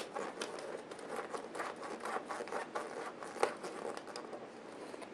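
Hands working a rubber tire with a foam insert onto a beadlock wheel rim, pulling the tire lip out. The result is faint, uneven rubbing and crinkling with scattered small clicks, one sharper click about three and a half seconds in.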